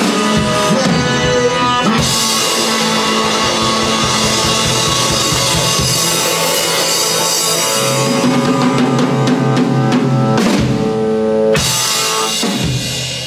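Electric guitar played through a 1967 Supro Thunderbolt tube amplifier, with a drum kit, in a loud rock jam. There is a short break about ten and a half seconds in, then a last chord that is left to ring out and fades away at the end.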